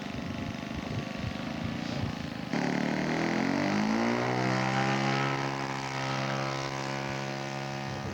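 Radio-controlled scale model airplane's engine and propeller running. About two and a half seconds in, the engine rises in pitch as the throttle opens, then holds a steady high note.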